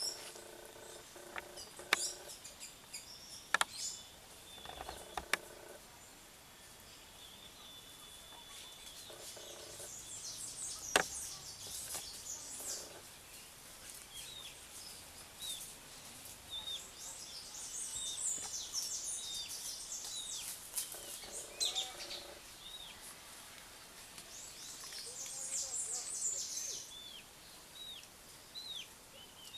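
Many small birds chirping, with quick high chirps and short down-slurred calls coming in clusters, busiest in the second half. A few sharp clicks stand out, the loudest about eleven seconds in.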